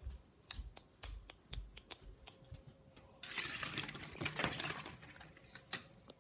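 Phone being handled and moved: a string of small clicks and knocks, then about three seconds of loud rushing noise starting about three seconds in.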